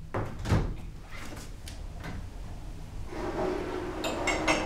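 Knocks of things handled on a wooden office table, loudest about half a second in. Near the end comes a creaking scrape with a few sharp clicks, like a drawer or door being worked.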